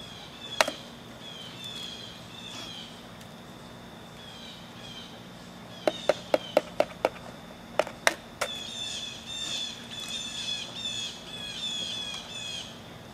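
An egg tapped sharply against the rim of a mixing bowl to crack it: one tap near the start, a quick run of about six taps halfway through, then three more a moment later. Small birds chirp over and over throughout, more busily in the second half.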